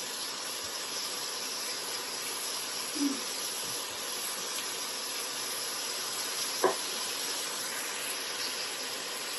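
Ground beef and onion frying in a pan, a steady sizzling hiss. A single short click about two-thirds of the way through.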